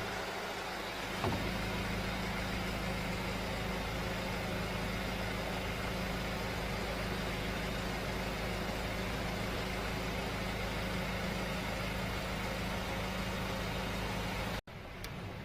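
Chevrolet 1.6 diesel engine idling steadily. Near the end the sound cuts out for an instant and returns quieter.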